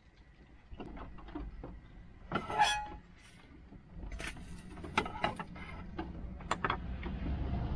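Scattered clicks, knocks and a brief clatter of items being handled in a small campervan kitchen, the loudest clatter about two and a half seconds in. A low rumble builds toward the end.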